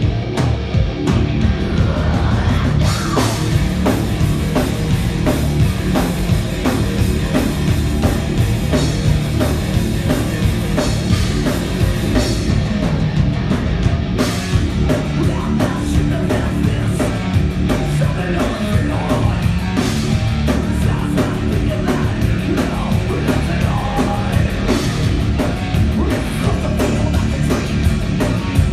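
Live heavy rock band playing a song at full volume, with a drum kit driving a dense wall of amplified instruments.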